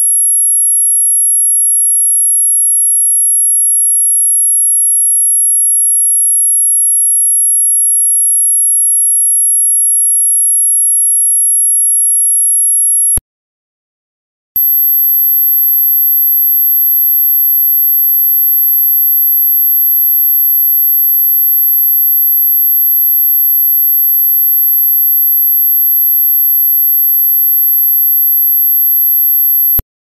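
A steady, very high-pitched pure tone played as an ultrasonic dog-whistle sound for calling dogs. It cuts off about 13 seconds in, and after a second and a half of silence a slightly higher, louder tone takes over. That tone stops just before the end.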